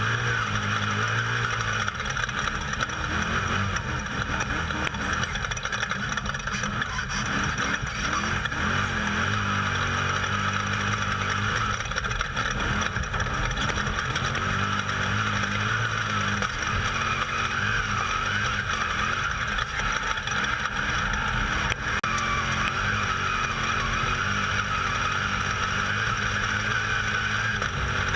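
Off-road desert race vehicle heard from onboard at speed: steady engine and driving noise.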